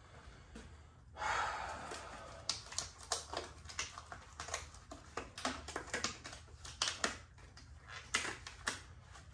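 Hands-on work noises: a rustling scrape about a second in, then a run of irregular sharp clicks and light knocks, one or two a second.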